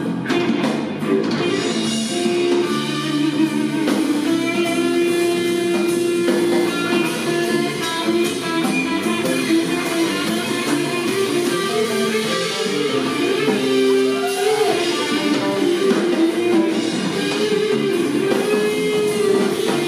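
A live rock trio plays an instrumental passage: electric guitar lines with bent notes over electric bass and drums.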